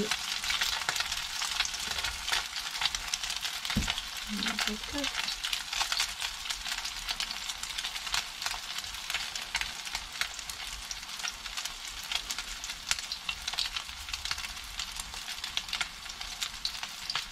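Crab cakes shallow-frying in hot oil in a cast-iron skillet: a steady sizzle full of small crackles and spits.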